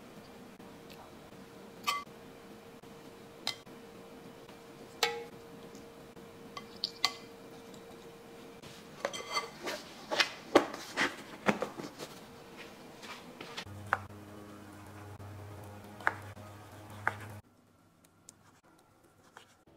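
Stainless steel tongs clinking and knocking against a glass mixing bowl as chunks of braised beef are dropped in, then a quick run of clicks and knocks as a plastic lid is pressed onto the bowl.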